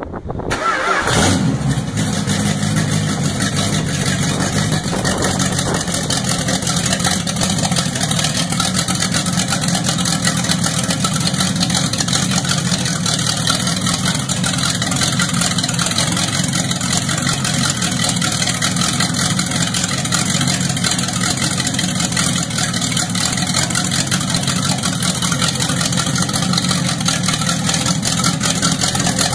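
Chrysler FirePower 331 cu in first-generation Hemi V8, fed by several carburetors, starting cold on a run stand. It catches about a second in and then runs steadily.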